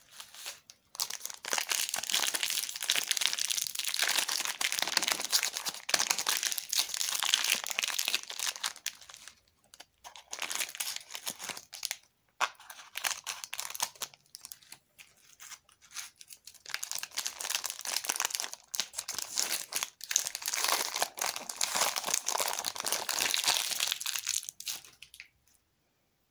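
Plastic Snickers bar wrapper crinkling and tearing as it is handled, cut and peeled off the bar. It comes in long stretches of dense crackling with a few short pauses, stopping about a second before the end.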